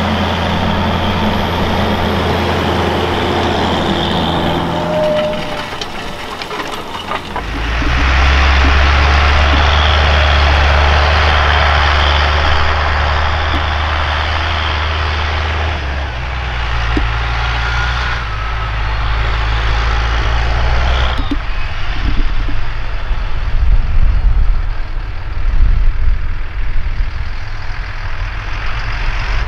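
Fendt 920 Vario TMS tractor's MAN six-cylinder diesel running under load while pulling a disc harrow through tilled soil. About seven seconds in the engine note steps louder and deeper, and in the last third the sound grows uneven.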